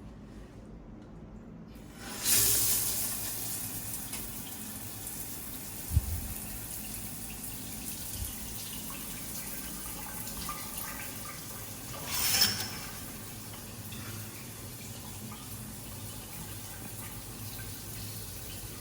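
Shower running: a steady hiss of spraying water that switches on about two seconds in, with a single knock a few seconds later and a brief louder gush about twelve seconds in.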